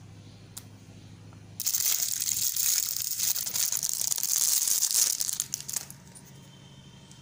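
Thin clear plastic packaging crinkling loudly as it is pulled and torn off a small ball-head mount. It starts about a second and a half in, lasts about four seconds, and stops well before the end.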